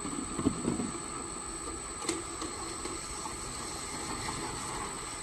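Automatic bottle-loading turntable running with a steady mechanical hum and high whine, empty bottles clattering and knocking against each other and the rim as it turns, with louder knocks about half a second in and about two seconds in.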